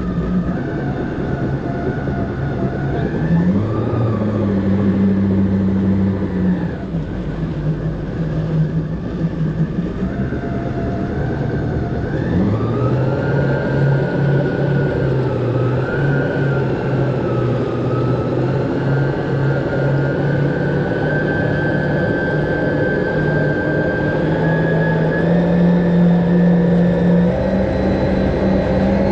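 Jet ski engine running under way, its pitch stepping up and down as the throttle is worked: up about three seconds in, down around seven, up again near twelve, then climbing slowly toward the end.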